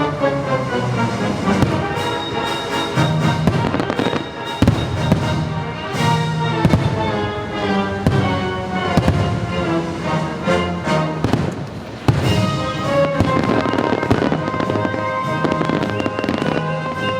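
Fireworks bursting: repeated sharp bangs and crackles, every second or so, over the show's loud accompanying music.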